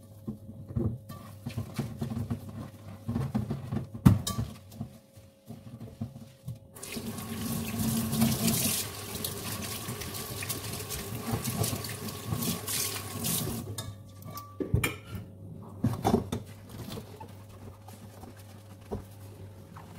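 Dishes being washed by hand at a kitchen sink: a frying pan and dishes clink and knock against the sink, with one sharp knock about four seconds in. The tap runs into the sink for several seconds in the middle, then stops and the handling knocks carry on.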